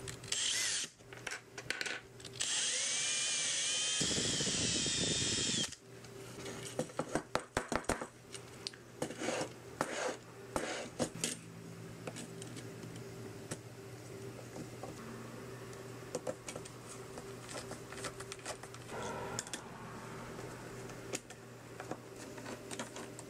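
Cordless drill boring holes into plywood: a few short bursts, then one steady run of about three seconds with a wavering whine that stops abruptly. After that come scattered light clicks and knocks as 3D-printed plastic parts are handled and fitted together.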